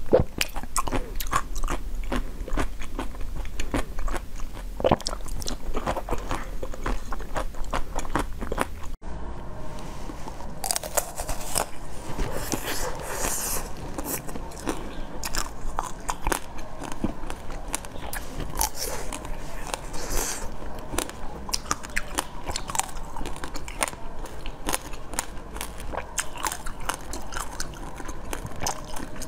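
Close-up biting, crunching and chewing of frozen sweets, a dense run of crackling bites. About nine seconds in the sound changes abruptly to a second eater, with crisper, sharper crunches.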